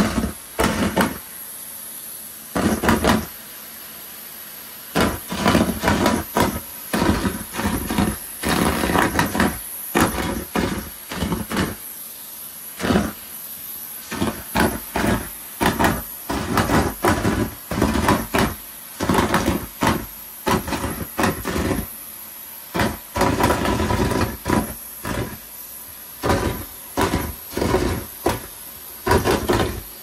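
Numatic Hetty tub vacuum cleaner running steadily while its metal wand sucks up deflated latex balloons from a carpet. There are many short, loud bursts, one after another, as balloons are pulled into the wand and hose, with a couple of brief pauses.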